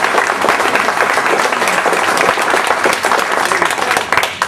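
A small group of people applauding, a dense run of hand claps that dies down near the end.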